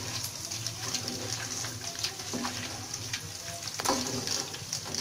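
Hot oil sizzling in a steel wok as a wire-mesh strainer ladle stirs through it and scoops out fried galangal crumbs. A sharp click comes just before four seconds in.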